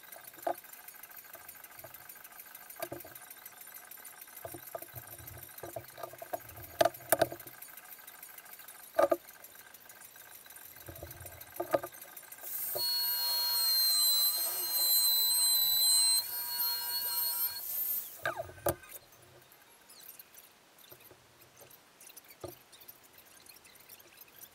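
Workbench handling sounds: tape and tools picked up and set down, with a few sharp knocks. About halfway through, a small handheld corded power tool runs for about five seconds with a high whine, then stops.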